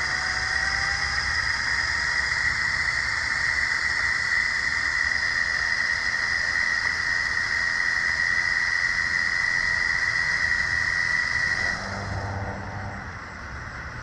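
Electric mini bike's 48 V, 2 kW motor and chain drive whining steadily at full throttle during a top-speed run. The whine stops about twelve seconds in as the throttle is let off.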